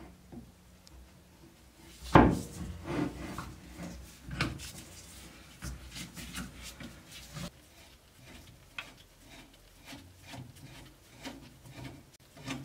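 Steel screwdriver blade scraping and prying at the metal spike and ferrule on the wooden shaft of an antique ice axe: a run of short scrapes and clicks, with one sharp knock about two seconds in.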